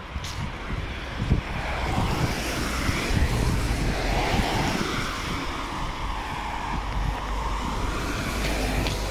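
Cars passing on a wet road, their tyres hissing in a swell that rises and fades, with wind buffeting the microphone.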